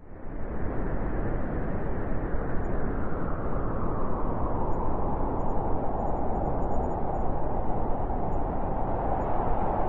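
Howling wind blowing as a steady, even rush with no distinct gusts. It swells up abruptly out of a moment of silence at the very start.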